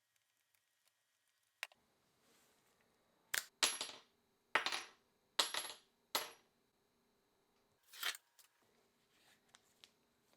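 Small metal parts clinking against a hard surface: a handful of sharp clinks, each with a brief high ring, bunched in the first half and another about eight seconds in.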